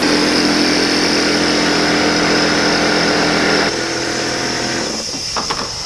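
Air compressor running with a steady machine drone and hiss. About three and a half seconds in the sound steps down and changes. It is making noises its owner finds unusual for it, with the tank reported full.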